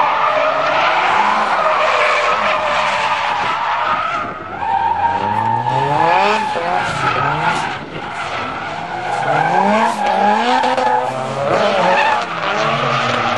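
Nissan S13 drift car's SR20DET engine revving hard and dropping back again and again as it slides through corners, with tyres squealing.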